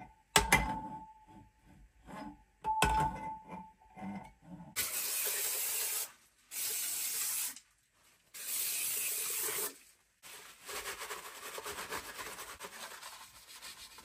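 A couple of sharp metal clinks with a short ringing tone as tools are handled, then three hissing bursts of aerosol spray, each about a second long, cleaning the aluminium cylinder head of a BMW S38B36. After that comes the scuffing of a rag wiping the head's combustion face.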